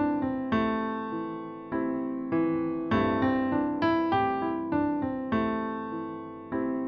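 Piano playing a series of struck chords and single notes, each left to ring and fade before the next: the keyboard accompaniment for a vocal warm-up exercise.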